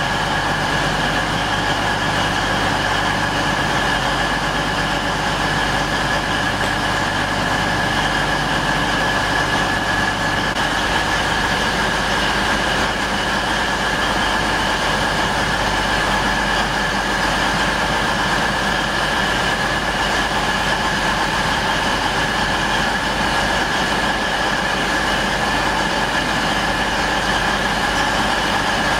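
East Midlands Trains Class 222 Meridian diesel multiple unit standing at the platform with its engines idling: a steady drone with a constant high whine.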